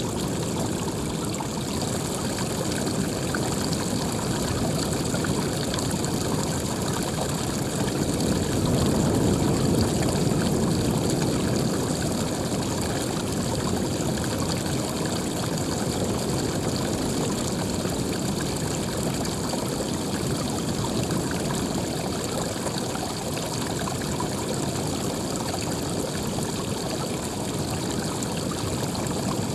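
Steady running water, a continuous rush of flowing and falling water that swells a little about eight seconds in.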